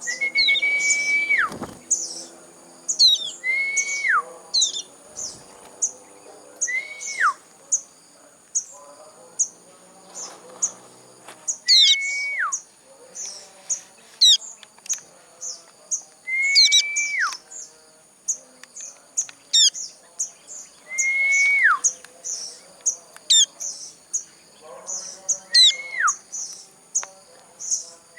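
A young sogon (crested jay) calling: the same call about every four seconds, a held note that then drops steeply, over a steady stream of short, very high chirps.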